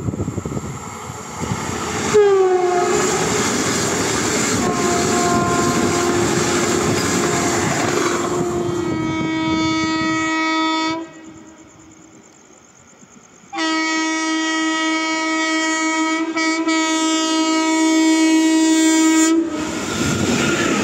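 Train horns and passing trains: a horn sounds over the rumble of a fast-running train for several seconds. Then a WAP5 electric locomotive's horn blows two long steady blasts, the second about six seconds long, and the train rushes past with wheel clatter near the end.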